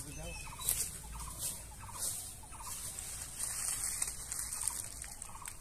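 Short, faint bird calls repeating every half second or so over a steady high-pitched hiss and a low rumble.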